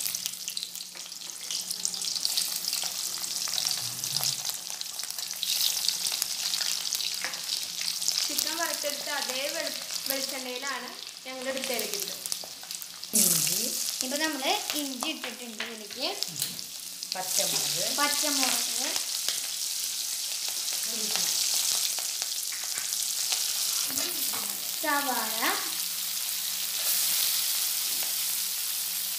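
Garlic, then ginger, then sliced onions sizzling steadily as they fry in hot coconut oil in a wok, stirred with a metal slotted spoon; the onions go in near the end. Intermittent gliding, pitched sounds come and go in the background through the middle.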